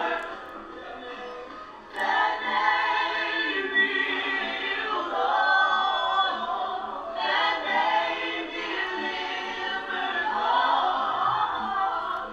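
A family singing together a cappella in several voices, with no instruments. The singing is softer at first and swells fuller and louder about two seconds in.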